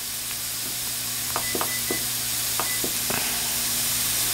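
Onion, celery and carrot sizzling in oil in a hot stainless steel skillet, a steady hiss growing louder as the pan heats. A little over a second in, a kitchen timer being set gives several short beeps.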